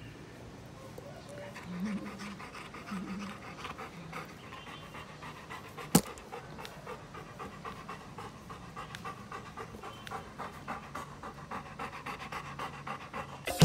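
Golden retriever panting steadily close up, its mouth open and tongue out. One sharp click about six seconds in.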